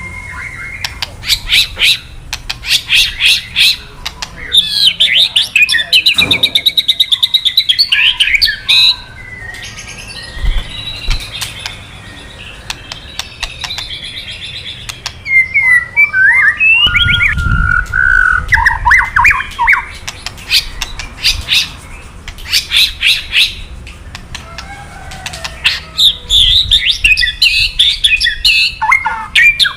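White-rumped shama (murai batu) calling in long rapid trains of harsh crackling 'kretekan' notes, broken by quick whistled and gliding song phrases. This is the agitated call that shama keepers play to rouse male shamas into answering.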